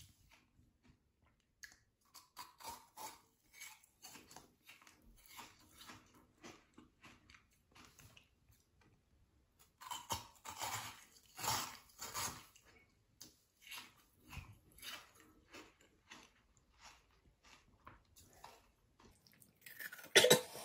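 Close-up chewing and crunching of an icy cider jelly pop, in quiet irregular bites. Near the end a louder coughing splutter starts as the eater chokes.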